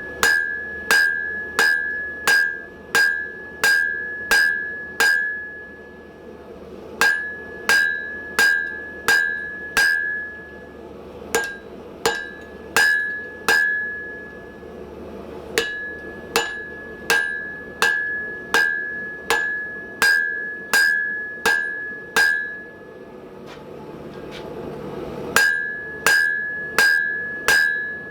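Blacksmith's hammer striking hot 1045 steel on an anvil to draw the bar out, about two blows a second, each with a clear ring. The blows come in runs of several, with short pauses between them.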